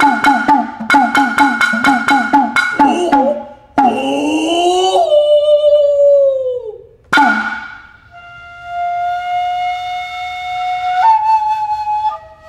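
Japanese hayashi ensemble of kotsuzumi, ōtsuzumi and taiko drums with a fue bamboo flute: a fast run of drum strokes for the first few seconds, then a long sliding tone and a single sharp drum stroke, after which the flute holds long notes, stepping up and then down near the end.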